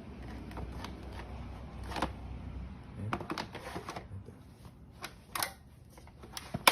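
Scattered plastic clicks and knocks as a 40-volt lithium-ion battery pack is handled and slid into a Kobalt cordless chainsaw. The pack ends with one sharp, loud click as it latches into place.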